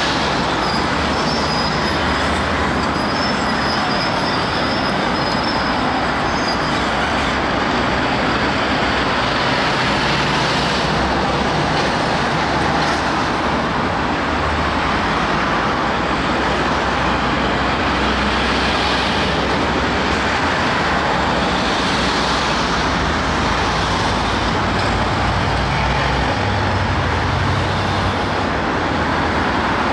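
Steady traffic noise of cars passing on a busy road, mixed with the diesel engine of a crawler excavator at work.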